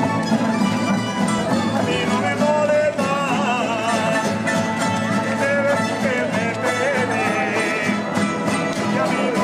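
A rondalla, a folk string band of bandurrias, lutes and guitars, playing a dance tune.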